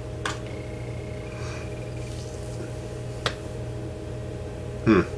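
Camcorder buttons clicking twice, once just after the start and once past three seconds in, over a steady low hum, with a brief louder sound near the end.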